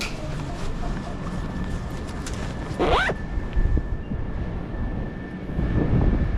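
Steady low rumble of a vehicle, with a short rising squeal about three seconds in and a faint steady whine after it.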